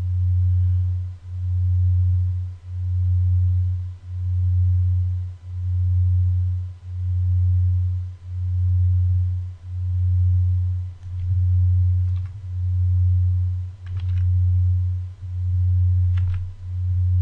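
A loud low hum that swells and dips about every second and a half, with a few faint clicks in the second half.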